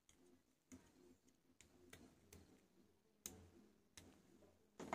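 Near silence broken by about six faint, sharp clicks and taps at uneven intervals, the sharpest about three seconds in: small hard parts being handled, as an LED bulb's driver circuit board is moved about after soldering.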